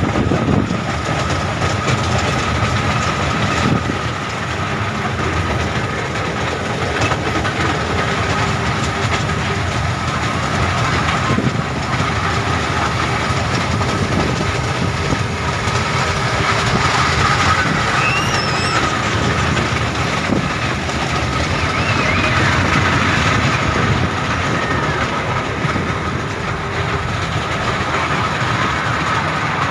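Amusement-park ride car running steadily, heard from on board: a continuous running noise with a thin, steady high tone over it.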